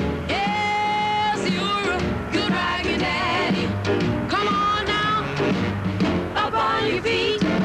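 A song with a singing voice over instruments; one sung note is held for about a second near the start.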